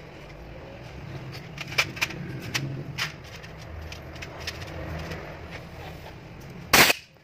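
Sharp clicks of alternator parts and tools being handled, over a low steady hum, then one loud short clatter near the end.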